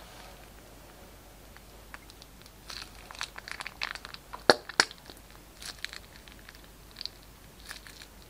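Glossy slime being squeezed from a plastic piping bag onto more slime, making sticky wet clicks and small pops. The clicks come in scattered clusters, with two sharp, louder pops close together in the middle.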